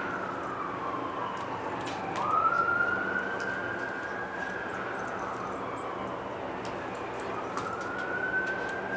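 An emergency-vehicle siren wailing in slow sweeps. It slides down in pitch over the first two seconds, jumps back up and climbs, slides down again, and begins to climb once more near the end.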